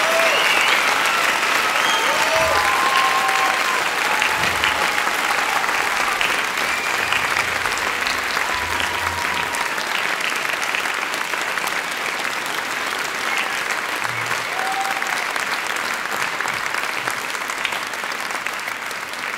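Large audience applauding, with a few shouts and whistles of cheering in the first few seconds; the clapping slowly thins toward the end.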